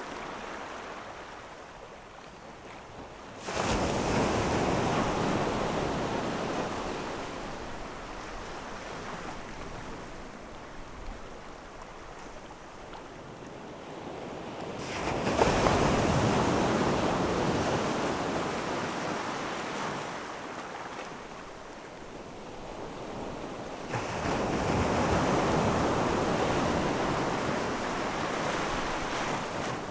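Low waves breaking and washing up a sandy, boulder-strewn shore. Three surges come in roughly ten seconds apart, each coming in suddenly and then fading slowly, over a steady background hiss of surf.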